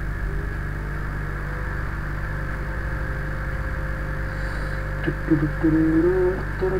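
Steady electrical mains hum with a hiss in the microphone recording chain. About five seconds in, a man's voice starts humming a few wordless notes.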